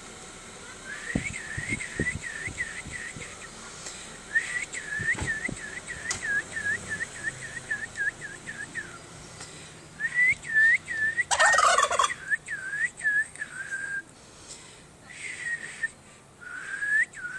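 White domestic turkey tom, puffed up in full strut, gobbles once, loudly, about eleven and a half seconds in. Long runs of short high whistles, about five a second, go on around the gobble.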